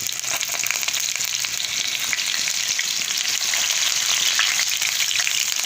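Potato pieces frying in hot mustard oil in a pan: a loud, steady sizzle with many small pops.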